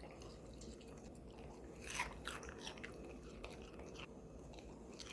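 Dog eating a meat puree, faint chewing and biting with small crunches and a few sharper clicks about two seconds in.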